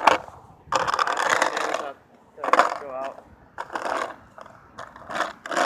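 Skateboard wheels rolling over rough pavement in several uneven stretches, mixed with wind buffeting the microphone.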